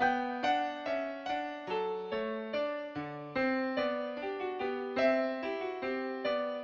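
Background music: a gentle piano melody played in steady, evenly spaced notes.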